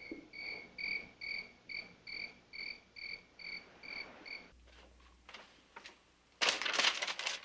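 Cricket chirping in a steady rhythm, a little over two chirps a second, which stops about four and a half seconds in. A few clicks follow, then a loud, noisy burst near the end.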